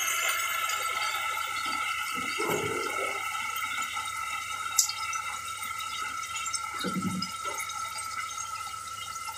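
Raw chicken pieces sizzling in hot groundnut oil in a pressure cooker, a steady crackling hiss that slowly fades as the pan cools with the added meat. A single sharp click a little before halfway.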